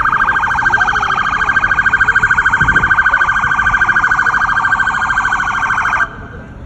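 An emergency vehicle's siren sounds loudly with a fast, even warble, then cuts off suddenly about six seconds in.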